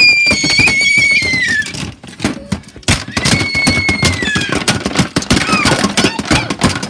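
Two long, shrill squeals, each held steady and then falling in pitch at the end, the first right at the start and the second about three seconds in, over knocks and rustling from the phone being handled.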